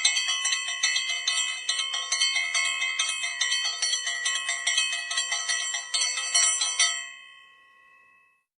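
A bell ringing in a fast, continuous run of strikes, stopping about seven seconds in and ringing on briefly as it fades.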